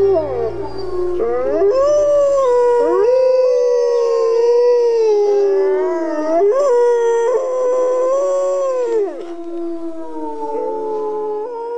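Wolves howling in chorus: several long, overlapping howls that rise and fall in pitch, a little quieter near the end. A low music drone fades out in the first few seconds.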